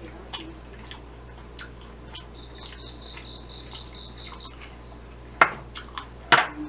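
Metal chopsticks clicking as they are handled, with scattered light taps and two sharp clicks near the end, over a faint steady hum.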